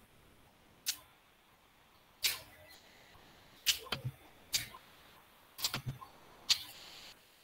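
About ten sharp clicks at a computer, some single and some in quick runs of two or three, made while setting up a screen share, over faint room noise.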